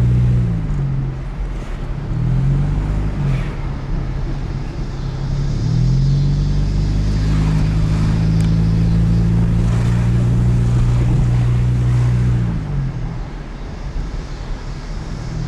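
Car engine and road noise heard from inside the cabin while driving. The engine hum drops in pitch about half a second in, rises and falls briefly around two to three seconds, rises again near six seconds and holds steady for several seconds, then falls near the end as the car eases off.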